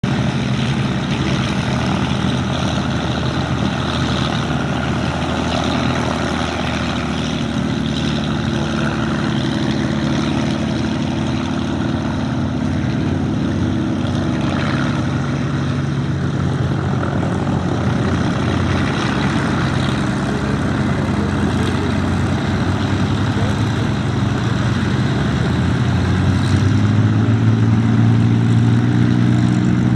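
Rolls-Royce Merlin V12 engines of Hawker Hurricane fighters running steadily at the airfield, a propeller-aircraft drone that grows louder near the end as another aircraft comes closer or opens up.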